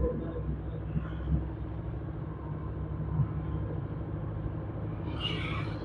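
A vehicle's engine running steadily while driving, a low even hum over road noise, with a brief higher-pitched sound about five seconds in.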